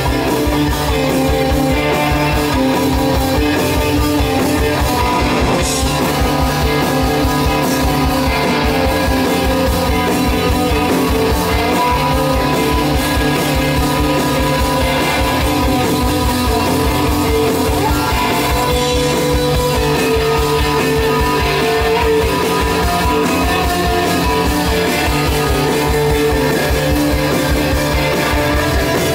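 Live rock band playing 60s–70s-style fuzz psychedelic rock: electric guitars, bass guitar and drum kit, loud and continuous with a steady drum beat.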